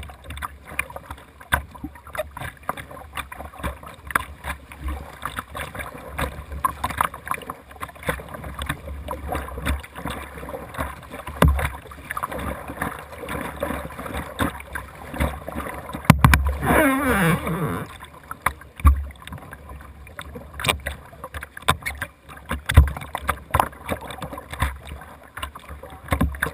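Kayak paddle strokes in pool water: a double-bladed paddle dipping and splashing on alternate sides in an irregular rhythm, with water dripping off the blades.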